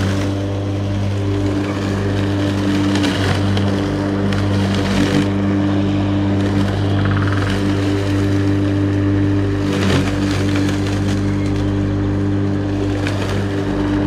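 Steady low machine hum made of several fixed, evenly spaced tones, unchanging throughout, with a few brief noisy swells over it.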